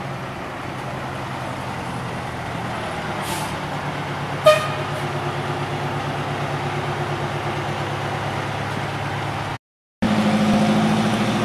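1987 LTI aerial ladder fire truck's engine running steadily with a rhythmic pulse as the truck pulls slowly away. A brief hiss about three seconds in, then a short horn toot about four and a half seconds in, the loudest moment. The sound cuts out for a moment near the end and the engine comes back louder.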